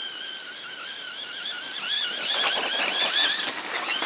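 Brushless electric motor of an Arrma Granite BLX RC monster truck whining: a steady high whine at first, then from about a second and a half in its pitch warbles quickly up and down as the throttle is worked.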